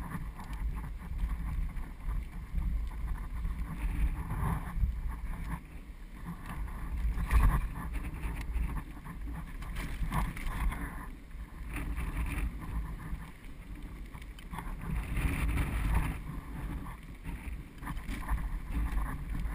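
Bicycle trailer rolling over pavement, heard from inside it: a steady low rumble of wheels and rattling frame with wind on the microphone, broken by a few sharp jolts, the loudest about seven seconds in.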